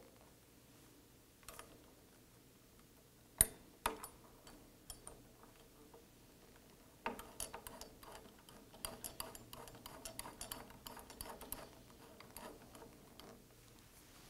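Small steel hardware clicking as a metal washer and lock nut are fitted by hand onto the 10 mm pivot bolt of a digital-readout display arm. There is a sharp click about three and a half seconds in and another just after it, then from about seven seconds in a long run of light, irregular ticks and clicks.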